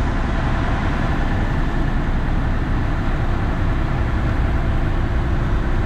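Fishing charter boat's motor running steadily: a constant low rumble with a noisy wash over it.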